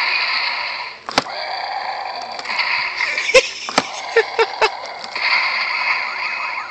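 Electronic sound effects from a Hulk action figure with smashing fists, set off by squeezing its legs: loud noisy crashing effects, with sharp clicks about a second in and a quick run of clicks between three and five seconds in.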